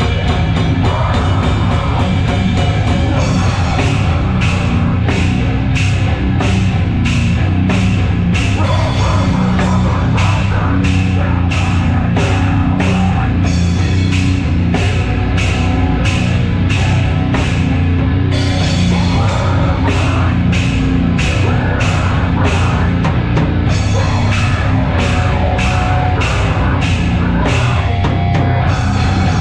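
A heavy metal band playing live: distorted guitars, bass and drums. The cymbal and snare hits come fast for the first few seconds, then settle into about two a second, with a short break a little past halfway.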